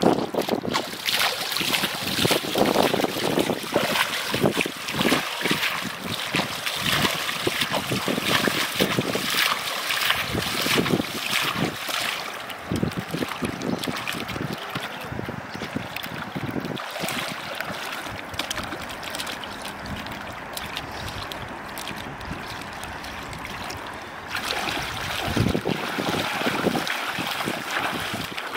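Shallow river water splashing and sloshing around the legs and hands of people working a line of bottle floats in it, with wind buffeting the microphone. Near the end, splashing steps as they wade through the shallows.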